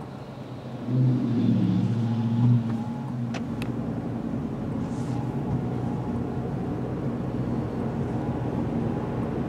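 Steady road and engine noise inside a car driving on a wet road. About a second in, a nearby vehicle's engine grows louder for a second and a half, then falls back; a pickup truck is passing close by in the next lane.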